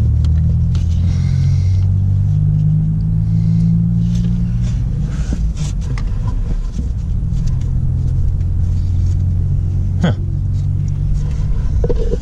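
Steady low mechanical rumble with a few shifting hums in it, and light clicks of metal parts, the sharpest about ten seconds in.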